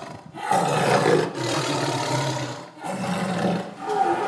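Tiger roaring: about four deep roars in a row, each a second or so long, with short breaks between them.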